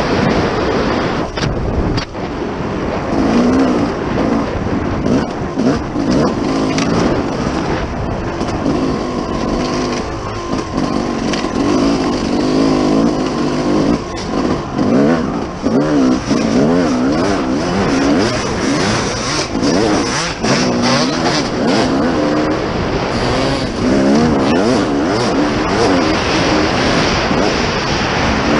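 Dirt bike engine being ridden hard on a rough trail, its pitch rising and falling constantly as the throttle is worked, with wind rush and knocks from the bumps.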